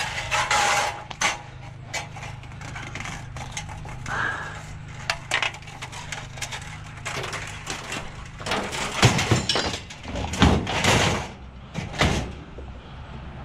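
A discarded scrap item being handled and loaded into a truck: scattered knocks and rattles over a low steady hum, with a cluster of louder bangs starting about nine seconds in.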